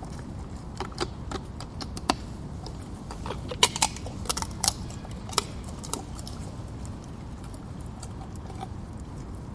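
Wild boar cracking and chewing nuts: irregular sharp cracks and crunches, busiest and loudest in a cluster in the middle, over a steady low rumble.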